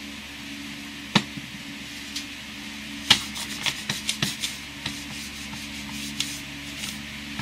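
A rag rubbing along a large steel blade, wiping it down with alcohol. A sharp knock comes about a second in and another about three seconds in, followed by a quick run of small taps and scrapes.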